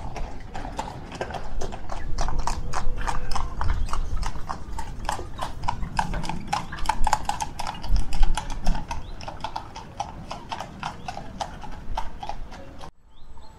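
A horse's hooves clip-clopping at a steady walk, about three to four hoof strikes a second, over a low rumble. The sound cuts off suddenly near the end.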